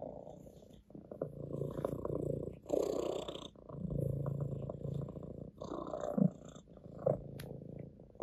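Orange tabby cat purring steadily, the purr swelling and dipping with each breath.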